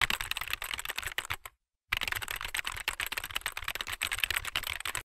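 Rapid computer-keyboard typing clicks, a sound effect for on-screen text being typed out, with a brief pause about a second and a half in.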